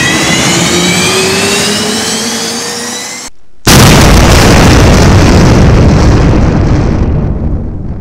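Sound effects under an animated title card: a loud engine-like rush rising slowly in pitch that fades, then, after a brief break about three and a half seconds in, a sudden loud blast that slowly dies away.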